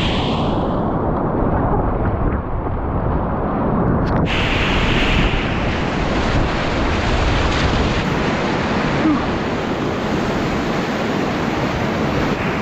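Loud rushing whitewater of a river rapid heard from a kayak in the middle of it, with water churning and splashing around the boat. For about the first four seconds the sound goes muffled and loses its hiss, then after a click it comes back full and bright.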